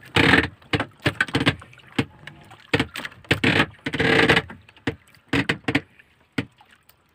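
Irregular knocks, scrapes and short clattering bursts from handling aboard a small wooden outrigger boat while a fishing line is hauled in. The loudest bursts come just after the start and again about three and a half to four and a half seconds in, and the knocking dies away near the end.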